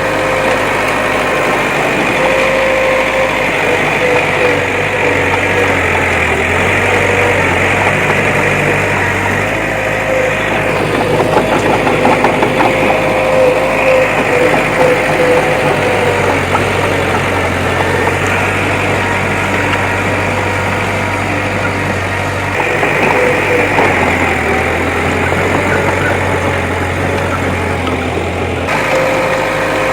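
Bulldozer's diesel engine running steadily under work, with a constant whine over the engine noise and a slight rise in level partway through.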